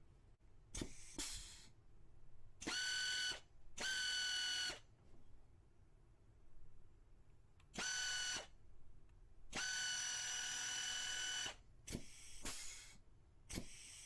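Air hydraulic rivet nut tool (GS-0117M pneumatic nut riveter) running in repeated short bursts: a steady whine from the air motor over a hiss of air. There are four longer runs, one lasting about two seconds, with shorter hissy bursts between them.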